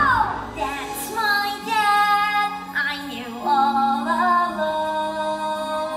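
A song from a live stage musical: a woman singing a melody with long held notes over musical accompaniment. A note slides downward right at the start.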